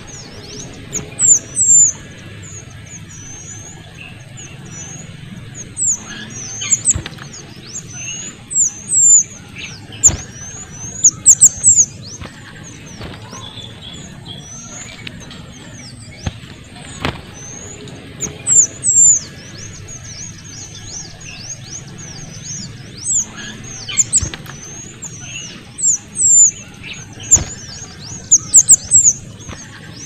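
Kuniran (mantenan kecil) singing: a busy, very high-pitched chatter of quick chirps, broken every few seconds by louder clusters of sharp notes.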